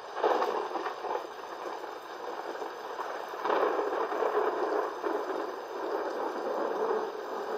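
Thunderstorm noise: a steady rush of rain and wind that surges twice, sharply about a quarter-second in and again about three and a half seconds in, and then wavers.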